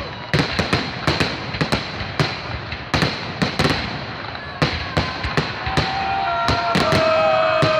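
Fireworks display: a rapid, irregular barrage of loud bangs, several a second. From about two-thirds of the way in, steady high whistling tones are held under the bangs for a second or two.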